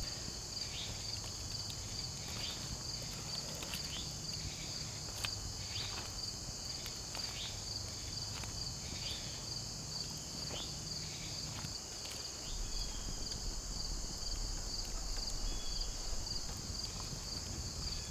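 Steady chorus of crickets trilling high with a fast pulse, over faint clicks and crackles from a wood campfire.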